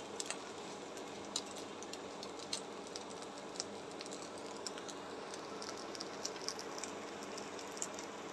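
Oil in a wok of freshly fried dried fish, garlic and chillies sizzling softly, with scattered small pops and crackles.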